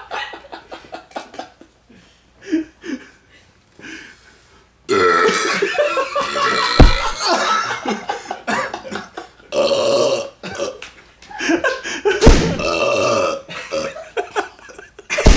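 Men belching on purpose: a few short, quieter sounds over the first five seconds, then long, drawn-out, loud belches from about five seconds in, with two sharp thumps among them.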